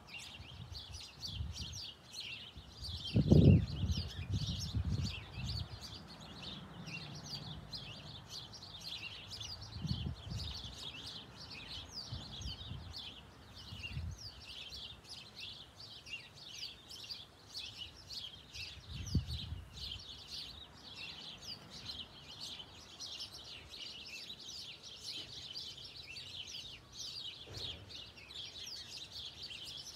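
Small birds chirping continuously, many quick chirps overlapping. A few low thumps come through, the loudest a few seconds in, with smaller ones around ten and nineteen seconds.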